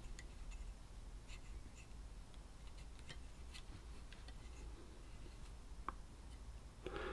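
Faint handling noise from an opened pocket calculator being turned over in the hands: light, scattered clicks and rubbing against its plastic case and circuit board.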